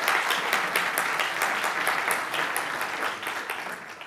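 Audience applauding: dense, steady clapping that thins out near the end.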